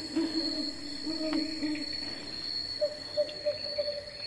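Night jungle animals calling: a run of low hooting calls in the first couple of seconds, then a few short higher notes about three seconds in, over a steady high-pitched insect drone.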